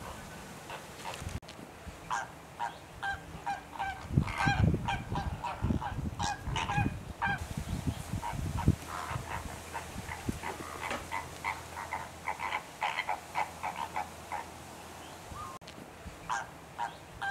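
A flock of greater flamingos calling: many short, goose-like honks overlapping in a busy, continuous chorus. A few low bumps come through about four to seven seconds in.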